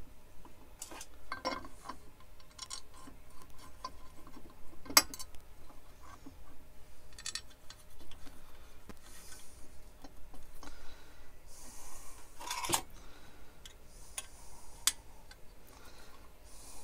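Light metal clinks, knocks and scraping as a lathe guard is fitted and shifted on the headstock: scattered small knocks, a sharp clink about five seconds in, and the loudest knock near thirteen seconds.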